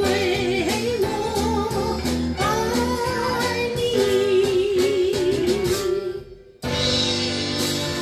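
A woman singing a Mandarin song over an acoustic band with plucked strings; she ends a phrase on a long held note with vibrato that fades out about six seconds in, and after a brief gap the band comes back in at once.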